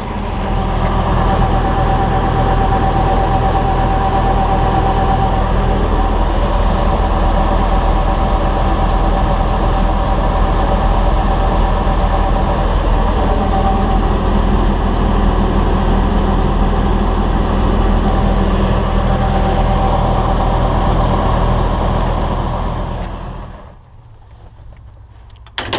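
John Deere farm tractor engine running steadily at working speed, with a steady whine over its drone, then dying away about two seconds before the end.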